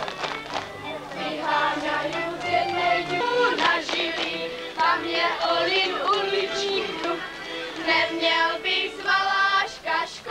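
A group of voices singing a folk song to accompany a folk dance.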